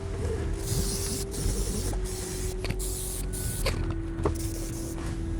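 Airbrush spraying paint in a string of short hissing bursts, over a steady low motor hum.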